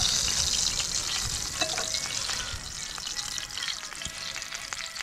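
Meat sizzling on a hot grill pan over a portable gas stove. The sizzle flares loudest at first, where water from a lettuce leaf has dripped onto the pan, then dies down.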